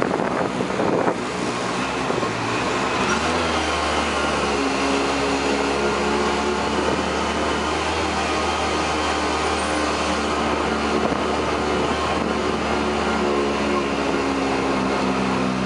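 Coco Taxi's small scooter engine running steadily while under way, heard from the passenger seat. A deeper steady hum joins in about three seconds in.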